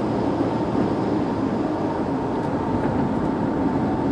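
Steady road noise of a car driving at highway speed, heard from inside the cabin: tyres on the pavement and the engine, with a faint steady tone above it.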